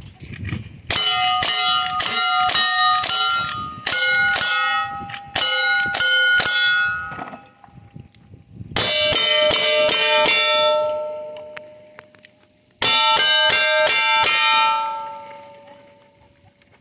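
Gunshots fired at steel plate targets in four quick strings of about five shots, each hit answered by the steel ringing with a clang. The ringing hangs on and fades slowly after each string.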